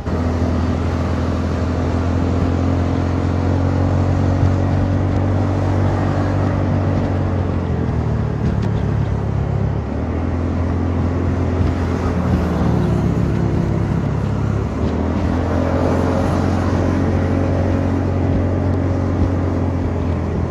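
Honda Forza 300 scooter's single-cylinder engine through an aftermarket exhaust freshly repacked with glass-fibre wool, getting louder as it pulls away and then running at steady throttle. Its pitch dips and rises about halfway through and again a few seconds later.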